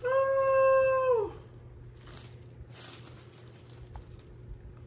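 A cat's single long meow, held at one pitch and then falling away at the end.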